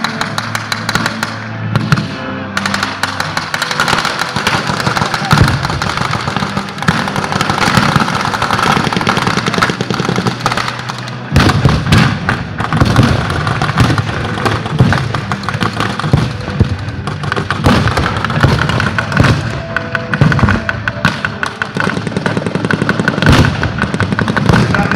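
Blank gunfire at a battle reenactment: rapid rifle shots and machine-gun bursts, with heavy thuds of pyrotechnic explosions, stronger from about halfway through. Background music plays underneath.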